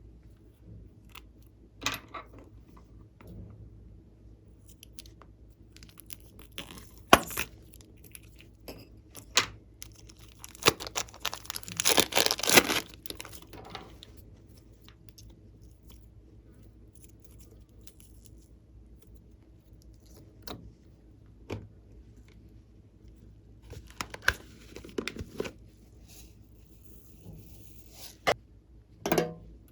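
Glossy slime being worked by hand, giving scattered sticky clicks and pops, with a longer stretch of dense crackling about eleven to thirteen seconds in.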